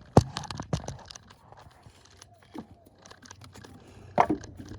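Sharp clicks and knocks of hands and tools working a Toyota Camry V6's rear ignition coil loose in the engine bay: two loud knocks just after the start, light scraping, then another cluster of knocks near the end.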